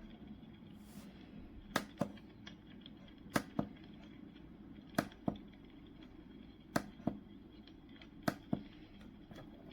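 Five pairs of sharp clicks, the two clicks of each pair about a quarter of a second apart, the pairs coming evenly about every one and a half seconds over a faint steady hum.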